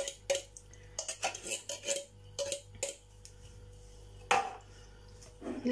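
Light, irregular clinks and taps of a metal tin can and cutlery against a bowl as canned stewed pork is emptied out, with one louder, longer clatter about four seconds in.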